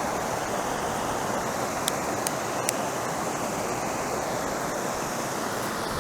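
Steady rush of river water tumbling over a small waterfall. Three light clicks come about two to three seconds in.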